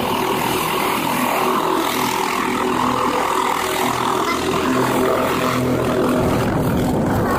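Helicopter running on the pad at flight speed: a steady engine and rotor hum. About six seconds in, a deeper rumble of rotor wash rises as it begins to lift off.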